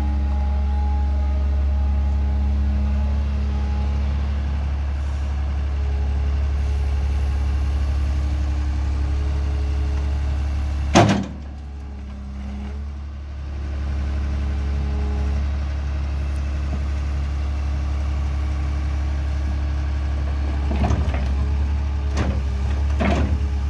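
Diesel engine of a Caterpillar M318C wheeled excavator running steadily with a deep hum. About eleven seconds in there is one sharp, loud crack, after which the sound is briefly quieter, and near the end two short louder surges break in.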